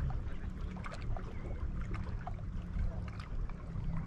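Wind rumbling on the microphone over small waves lapping against the jetty rocks, with scattered light ticks and splashes.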